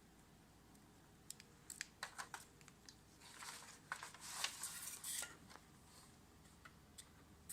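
Faint scattered clicks and a soft rustle of small objects being handled, with a single click near the end.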